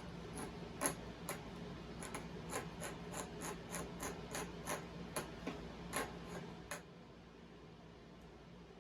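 A run of light, sharp ticks with faint rubbing, about two to three a second, that stops about seven seconds in, leaving faint room tone.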